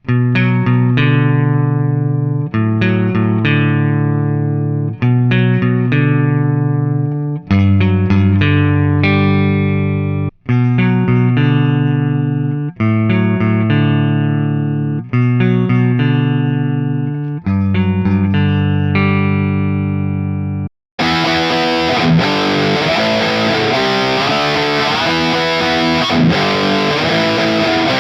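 Electric guitar playing: chords struck and left to ring, one about every two and a half seconds. About 21 seconds in, after a brief break, it switches to a distorted tone playing a quicker run of notes.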